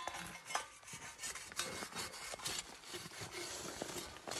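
Metal point of a Duc hand push plow scraping and rasping through dry, crusted soil as it is pushed along, a rough continuous noise broken by many irregular crunches.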